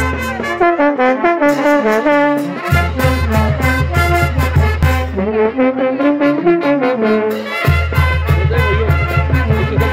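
Brass band music with a steady beat; the deep bass and drum part drops out twice and comes back in.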